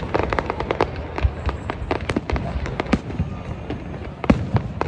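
Fireworks going off: a rapid, irregular string of sharp cracks and pops, with a louder bang about four seconds in.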